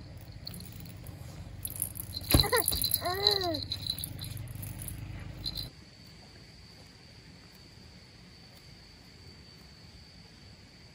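Rattling over a low hum, with a sharp click and a short rising-and-falling call, all cutting off suddenly about halfway through. After that a steady high insect drone, like crickets.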